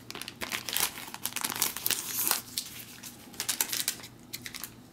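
Crinkling and crackling of a MealSpec heater bag's packaging being opened and handled, a rapid run of crackles that thins out near the end.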